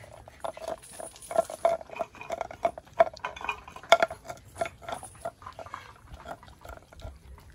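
A dog eating from a metal bowl: its licking and chewing set the bowl clinking and knocking, a few times a second.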